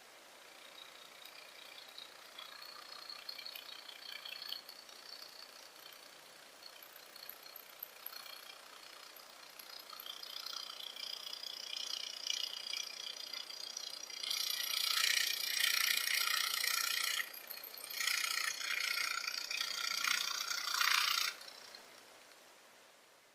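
Tiny electric gear motor of a 1/150-scale RC truck whirring with a high-pitched gear whine. It runs faintly at first, then louder in two spells in the second half, with a brief break between them, and stops suddenly near the end.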